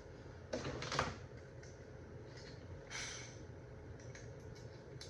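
Handling noise from taking apart a plastic box fan: a short rustle and clatter about a second in, another brief scrape near three seconds, and a few faint clicks over a low steady background.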